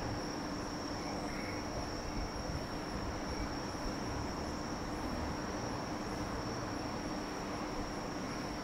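Insects, likely crickets, chirring in a steady high-pitched drone, over a low steady hum and a faint low rumble.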